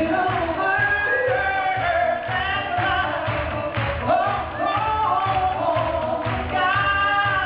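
Live band music with a steady drum beat under sung melody lines.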